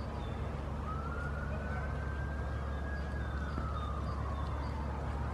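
Emergency vehicle siren in a slow wail: the pitch rises, holds high, glides down over about two seconds, then begins to rise again near the end.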